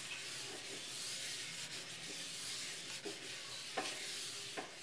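A cloth pad wiping ghee over a nonstick pan: a steady rubbing swish.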